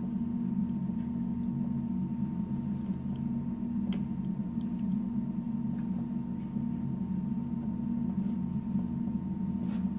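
Steady low hum of room tone, with a thin faint tone above it and a few faint small clicks about four seconds in.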